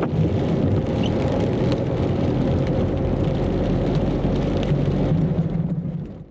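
Steady engine and tyre noise heard from inside a car driving on a wet street, with a few faint taps of raindrops on the windscreen. It fades out near the end.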